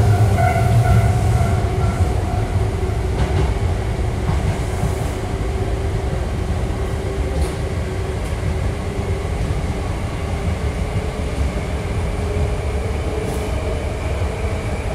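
Hankyu 5300-series electric train running through a subway tunnel, heard from inside the car: a steady low rumble of wheels on track with a faint motor whine that fades in the first couple of seconds, and a few scattered clicks.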